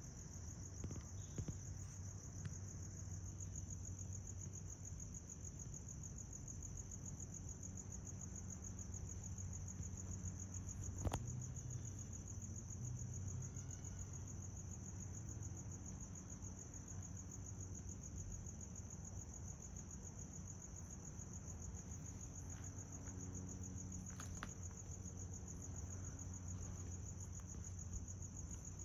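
Crickets trilling continuously at a high, steady pitch, with a low rumble of breeze on the microphone. A single sharp click about eleven seconds in.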